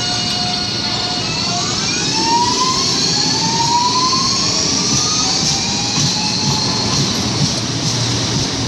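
CPTM electric commuter train accelerating. Its traction motors give a steady whine, then from about a second in several whines rise in pitch as the train gathers speed, over the running rumble of the train.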